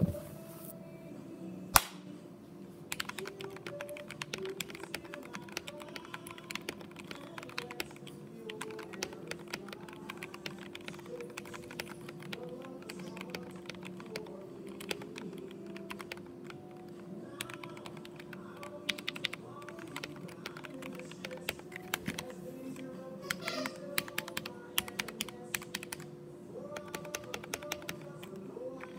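Typing on a mechanical keyboard: quick runs of keystroke clicks with short pauses between them, with one sharp louder click about two seconds in. Quiet background music plays underneath.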